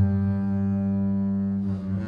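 Double bass bowed, holding one long low note that changes shortly before the end.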